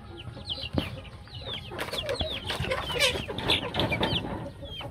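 Young growing chickens calling with many short, high, falling peeps that overlap one another, with a few sharp taps among them.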